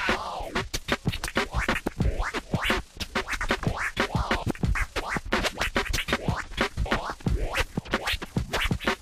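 Background electronic music: a busy passage of rapid scratch-like sweeps and clicks over a light bass.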